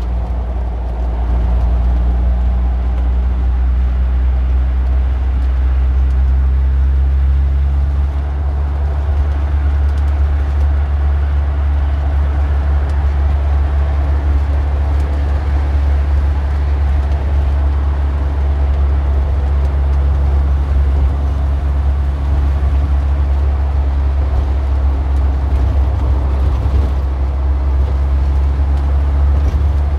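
A car engine running steadily: an even, low rumble.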